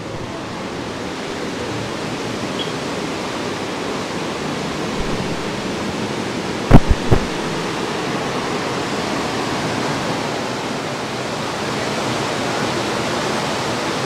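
Steady rushing noise of wind and the cruise ship's churning wake, with three short low thumps close together about halfway through.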